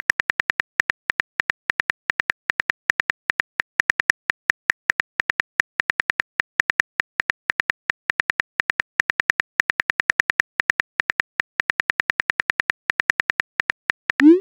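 Phone keyboard click sound effects, a rapid even run of short sharp taps at about six a second as a text message is typed letter by letter. The run ends in a short rising whoosh as the message is sent.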